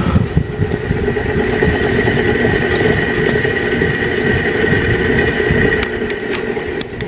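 Harbor Breeze Marco Island ceiling fan running and humming, with an uneven low rumble and a faint steady high whine over it. The hum is the fan's fault: it runs very noisy, though still usable.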